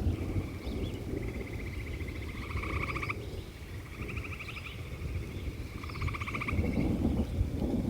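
Frogs calling in repeated pulsing trills, each about a second long, several in a row, over a steady low rumble.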